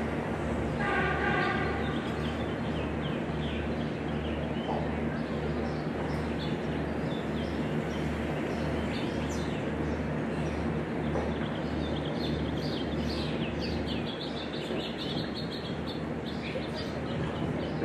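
Steady outdoor background noise with small birds chirping on and off, more often in the second half, over a low even throb about twice a second. A short pitched call sounds about a second in.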